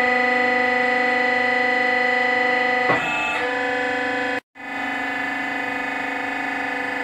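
Hydraulic power pack of an interlocking brick press whining steadily under pressure, its pitch shifting briefly about three seconds in as the cylinder pushes the pressed block up out of the mould. The sound cuts out for an instant partway through.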